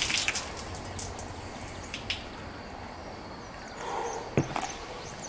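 Water draining and splashing out of an upturned Ethiopian banana (Ensete) pseudostem, which is full of water, with scattered drips and rustles as the plant is handled. A short knock about four seconds in.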